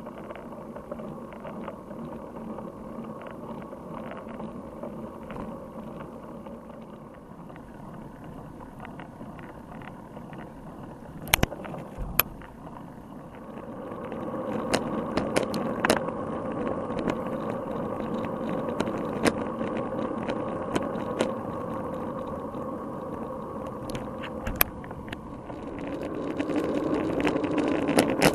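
Muffled rumble of a bicycle riding along a wet road, heard through an action camera's sealed waterproof housing, which lets little sound through. Scattered sharp taps and knocks on the housing, and the rumble grows louder about halfway through and again near the end.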